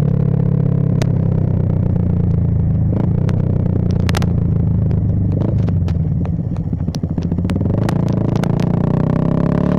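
Bajaj Pulsar 220F's single-cylinder engine running under way through a Race Concepts full-system exhaust, holding fairly steady revs. It eases off briefly around seven seconds, then picks up again, with scattered sharp clicks and knocks over it.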